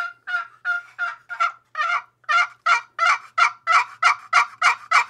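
Turkey box call played in a long run of yelps, about three notes a second, growing louder and raspier after the first couple of seconds.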